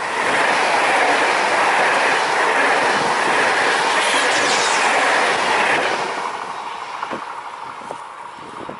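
High-speed electric passenger train passing close at speed: a loud rushing of wheels on rail and air that holds for about six seconds, then fades as the train recedes. Faint wheel clicks can be heard near the end.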